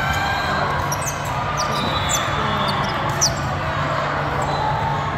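Volleyball-hall ambience: balls bouncing on the hard sport courts and a few short, sharp high squeaks like sneakers on the court, over a steady low hum and the general din of the hall.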